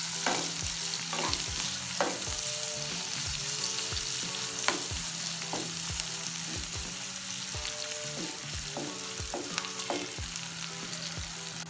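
Sliced onions, green chillies and garlic sizzling in hot oil in a non-stick kadai, stirred with a wooden spatula that scrapes and taps against the pan about twice a second.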